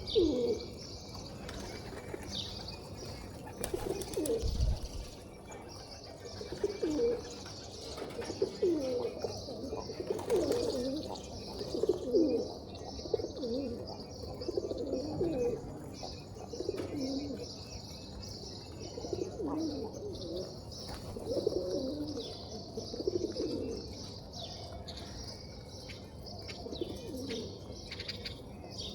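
Pigeons cooing over and over, several low calls overlapping, with steady high-pitched chirping from small birds behind them.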